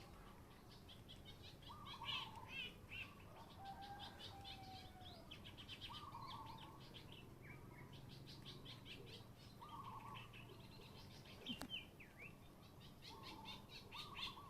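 Faint birdsong: quick runs of high chirps, with a short lower call repeating about every two seconds. A single sharp click sounds about eleven and a half seconds in.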